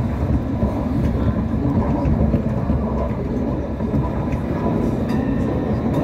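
Hong Kong Light Rail Phase I light rail car running between stops, heard from inside the car: a steady rumble of wheels on the track and running gear, with a faint steady whine above it.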